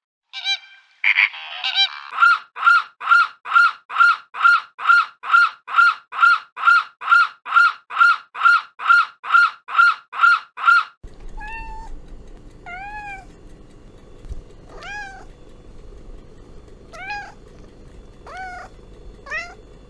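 Animal calls: a fast, even run of about twenty identical high calls, a little over two a second. About halfway through there is an abrupt change to a hissy recording, with single rising-and-falling calls every couple of seconds.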